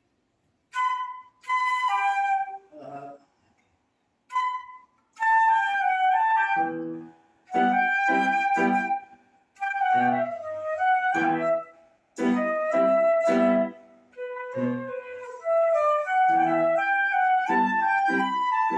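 Flute playing a melody in short phrases with brief pauses, starting about a second in; from about seven seconds in, short low accompaniment notes sound under it.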